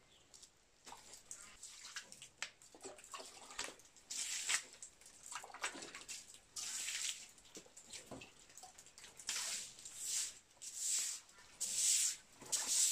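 Water scooped from a bucket and splashed onto a concrete floor to rinse it: a string of splashes about a second apart, starting about four seconds in, with lighter knocks and shuffles before.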